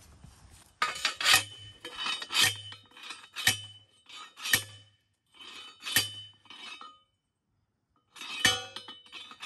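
Steel T-post being pounded into soft ground: a run of ringing metal-on-metal clanks, about one a second, with a short pause before the last two strikes.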